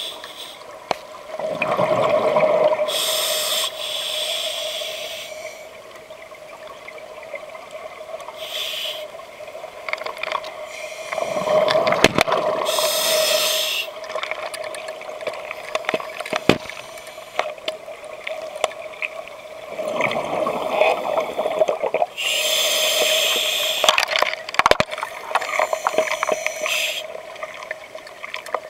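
Scuba diver breathing underwater through a regulator: three slow breaths, each a rush of exhaled bubbles and a hiss of inhaled air. A faint steady hum and a few sharp knocks run underneath.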